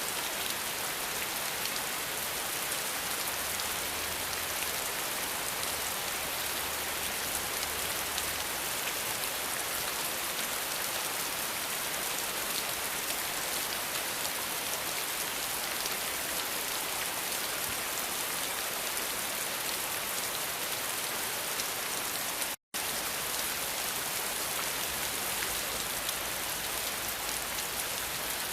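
Steady rain falling, an even hiss of many drops on surfaces. It cuts out completely for a split second about three-quarters of the way through, then resumes.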